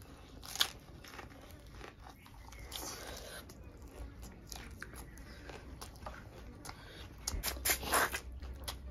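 Chewing and biting into fried climbing perch with rice: soft mouth sounds with scattered crunches, a sharp one about half a second in and a denser run of crunches near the end.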